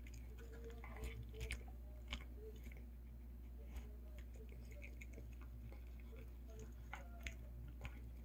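A small curly-coated dog eating pork and dried pollack from a ceramic plate: irregular chewing and crunching with sharp clicks, a few louder ones scattered through, over a steady low hum.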